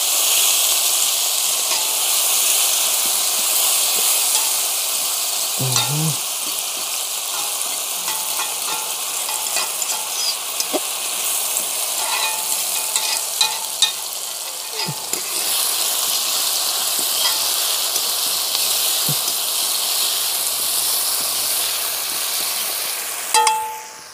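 Natural seasoning frying in hot oil in a pot: a steady sizzle, with the clicks and knocks of a utensil stirring it against the pot now and then. The sizzle drops away sharply near the end.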